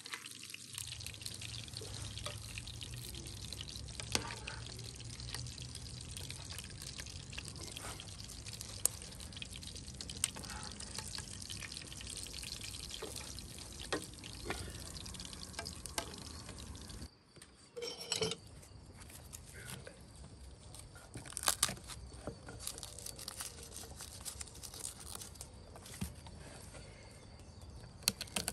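Food cooking in a pan: a steady sizzling hiss with scattered pops and clicks. The sound breaks off briefly about 17 seconds in and resumes a little quieter.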